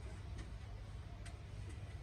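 Two faint, sharp clicks of small parts or a tool being handled on a laptop, over a low steady hum.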